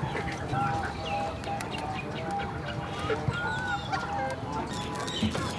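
Chickens clucking with birds chirping, many short calls overlapping, and scattered sharp clicks.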